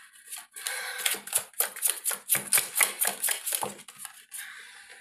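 Tarot cards being shuffled by hand: a run of crisp, papery clicks, about four a second.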